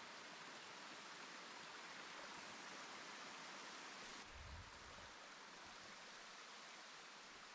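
Faint, steady rush of a small mountain stream trickling over rocks and down a low cascade. The sound changes abruptly a little after four seconds, where the hiss thins in the highs, with a short low bump just after.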